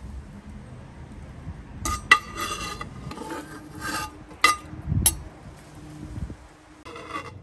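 Metal slotted skimmer scraping and clinking against the inside and rim of an aluminium Afghan kazan pot as stew is scooped out, with a few sharp clinks and a dull knock about five seconds in.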